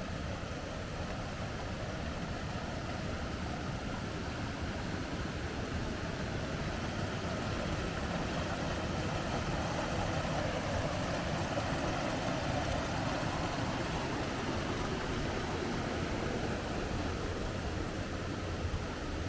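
Steady rushing noise of running water, growing a little louder in the middle.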